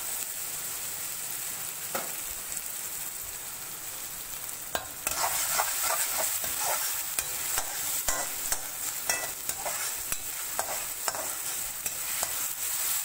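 Onion and ginger-garlic paste sizzling in oil in an aluminium kadai while a perforated steel spatula stirs and scrapes the pan. The sautéing is at the stage of cooking off the raw smell of the paste. The scraping and clicking of the spatula get louder and busier about five seconds in.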